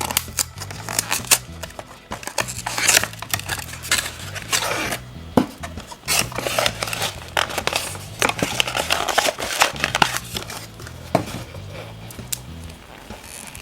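Crinkling wrapper and repeated sharp clicks and taps of a plastic toy capsule as a chocolate surprise egg is unwrapped and opened, over light background music.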